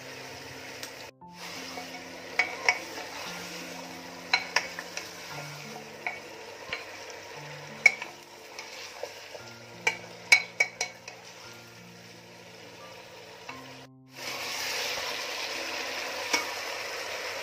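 Steel spoon stirring mutton trotters through sizzling onion-and-spice masala in an aluminium pressure cooker, with frequent sharp clinks and scrapes of the spoon against the pot over a steady frying hiss. The sizzle grows louder near the end.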